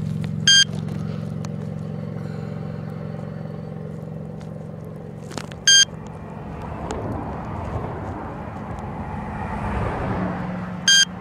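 A radiation detector gives three short, high electronic beeps about five seconds apart. Under them is a vehicle's steady low hum, and a passing car's rush swells up near the end.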